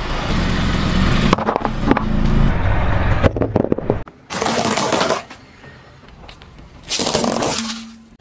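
A string of short, cut-together clips of a car tyre rolling over and crushing small objects on asphalt, with crunching and cracking noises. Each clip cuts off abruptly, with separate bursts about halfway through and near the end.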